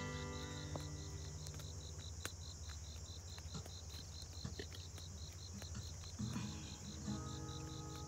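Outdoor insect chorus: a steady high hiss with an even, pulsing chirp about four or five times a second.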